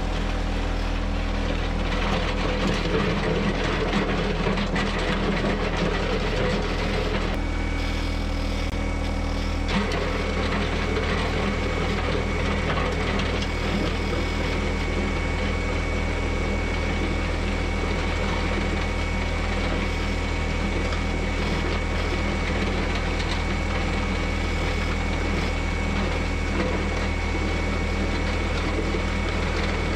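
John Deere 1025R subcompact tractor's three-cylinder diesel engine running steadily under work. A thin, steady high whine joins it about seven seconds in and holds.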